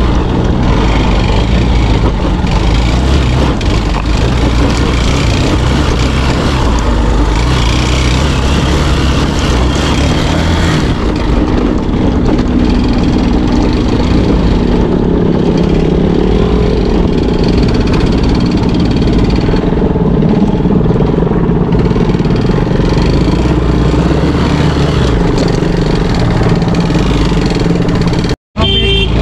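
Motorcycle engine running under way on a rough trail, its pitch shifting as the throttle changes, with a low rumble of wind and road noise on the mic. The sound cuts out briefly near the end.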